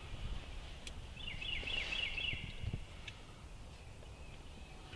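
Turkey yelping: a quick run of about five high, falling notes, roughly four a second, over faint rustling.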